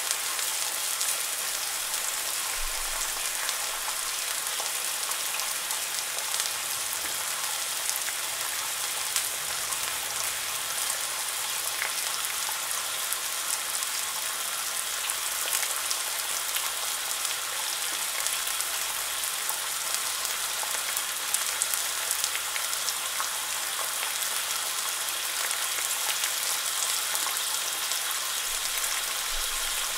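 Unsmoked back bacon sizzling steadily in a carbon steel frying pan, with a dense patter of small crackles and spits.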